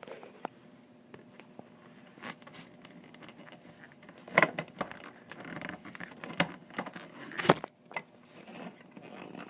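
Plastic parts of a water cooler's cap assembly being handled and screwed together: scraping and rubbing with scattered clicks, two of them sharp and loud about four and a half and seven and a half seconds in.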